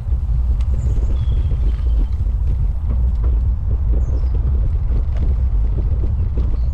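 Steady low rumble of wind buffeting a GoPro's microphone during a bicycle ride, with a few faint high chirps.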